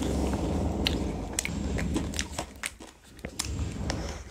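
Ice cream being bitten and eaten close to the microphone: wet mouth and chewing sounds with many short, sharp clicks.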